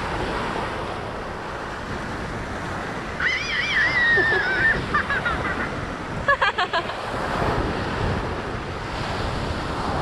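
Ocean surf washing onto a beach, a steady rushing noise, with wind on the microphone.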